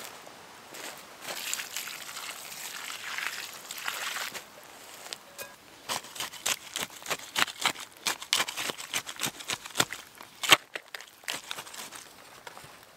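Water poured into a pit of natural clay for about three seconds. Then a small shovel blade stabs and stirs the wet clay into mud, a quick run of sharp wet slaps and scrapes, the loudest near the end.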